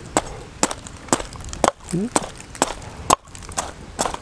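A large knife chopping into a young jackfruit held on a wooden chopping block: sharp, short chops about twice a second.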